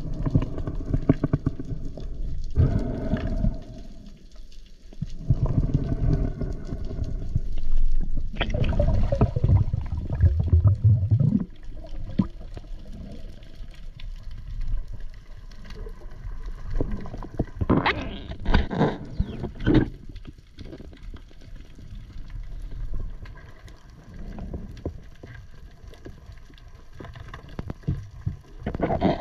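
Water noise picked up by a spearfisher's camera, rising and falling in irregular rumbling surges, with a cluster of sharp clicks about two-thirds of the way through.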